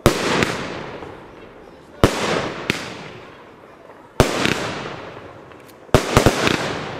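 Fireworks going off: a sharp bang about every two seconds, each followed by a crackling tail that fades. Near the end comes a quick run of several cracks.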